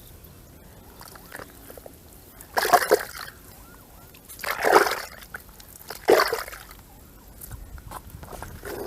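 Water splashing and sloshing in three short bursts, about a second and a half apart: hands catching fish in a water-filled hole.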